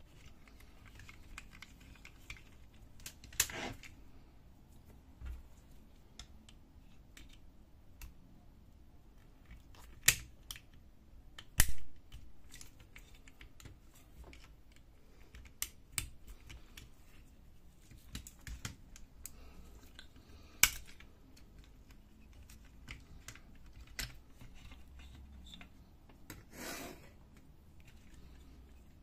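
Hard plastic parts of an HP Color LaserJet CP3525 fuser unit clicking and snapping as they are handled and pried apart. The clicks are scattered and irregular, with a few sharper snaps and a short scrape near the end.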